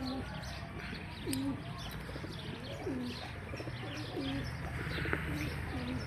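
Domestic fancy pigeons cooing: a series of low coos a second or so apart, with a few higher short chirps.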